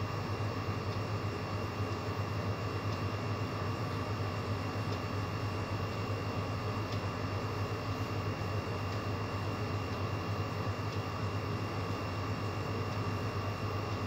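Steady machine hum: a low drone with a faint high whine over it, unchanging throughout, with faint ticks every second or two.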